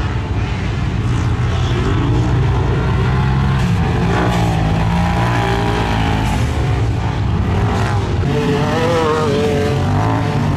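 Several side-by-side UTVs running laps on a dirt track. Their engines rev up and down over and over, with more than one engine heard at once.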